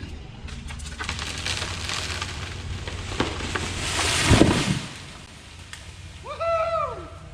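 Oak tree coming down: limbs cracking and snapping, rising to a loud crash as it hits the ground about four and a half seconds in. A short rising-and-falling call follows near the end.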